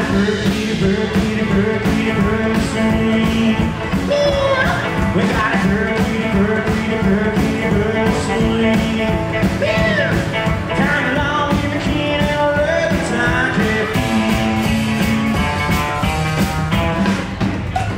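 Live rockabilly band playing: electric guitar, upright double bass and drum kit, with a male lead vocal over a steady beat.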